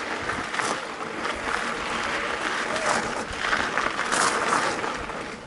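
Mountain-bike tyres rolling over a dirt and gravel trail: a steady crackling, crunching hiss.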